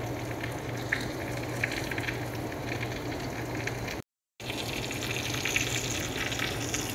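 Marinated chicken pieces sizzling in a frying pan, steady hiss with small scattered crackles. The sound cuts out completely for a moment about four seconds in, then resumes.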